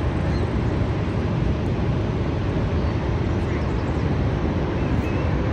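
Steady low roar of Niagara Falls, a constant rumble of falling water with an even hiss above it.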